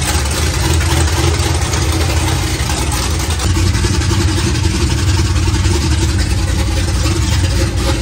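427 cubic-inch LSX V8 idling steadily with the transmission in park.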